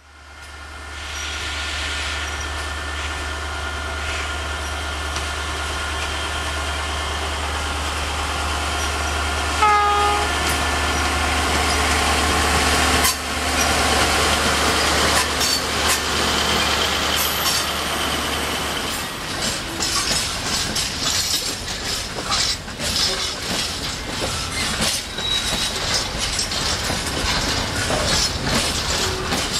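Freight train wagons rolling past on the rails in a steady rumble, with one short train horn blast about ten seconds in. From about two-thirds of the way through, the rumble gives way to dense, irregular clicking and clatter of wheels over the rail joints.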